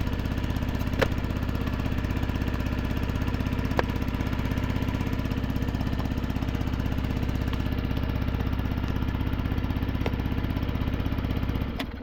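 An engine running steadily at constant speed, with a few faint clicks, then stopping abruptly near the end.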